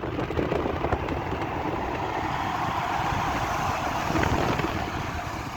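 Car driving: steady engine and road noise.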